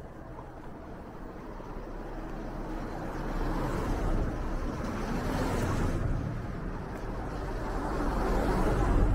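A car approaching along the street, its engine and tyre noise growing steadily louder until it passes close near the end.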